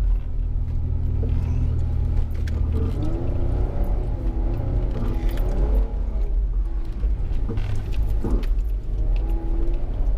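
Off-road vehicle's engine running under way with a steady low drone, with scattered clicks and rattles. From about three seconds in, faint wavering melodic lines ride over it.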